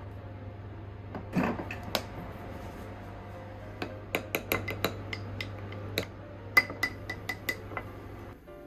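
Kitchen utensils clinking against dishes: a scatter of sharp taps and clinks, some ringing briefly, with a steady low hum underneath that stops near the end.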